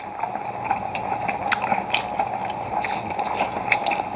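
Wet, clicky smacking and slurping as a person sucks and chews a piece of boiled octopus, in irregular clicks several times a second. Under it, a hot pot bubbles steadily on a portable gas burner.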